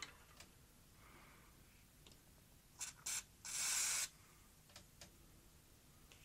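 Aerosol can of silicone grease spraying: two short spritzes, then a longer hiss of about half a second. A few faint ticks come before and after.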